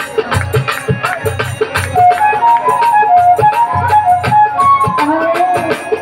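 Live Bengali folk music, an instrumental passage: a high melody of held and ornamented notes over a fast, steady hand-drum beat.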